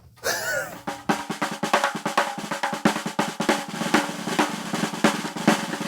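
Music: a fast snare drum roll over held chords, starting about a second in.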